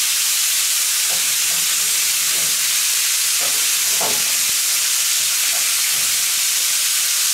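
Bacon-wrapped turkey schnitzels sizzling steadily on a hot cast-iron griddle plate over a wood fire, with a few faint scrapes and taps as tongs shift the pieces.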